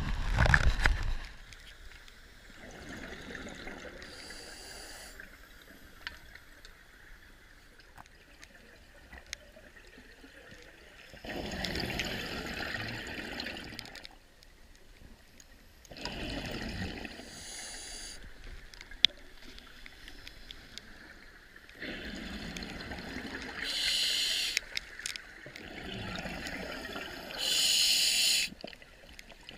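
A scuba diver breathing through a regulator underwater: a hiss on each breath in and a gurgling rush of exhaled bubbles, repeating every few seconds. It opens with about a second of loud wind and boat noise.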